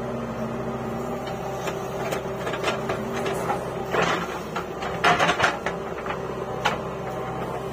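JCB 3DX backhoe loader's diesel engine running steadily while it digs with the rear bucket. Noisy rushes of soil and clatter come about four seconds in, and louder ones around five seconds in.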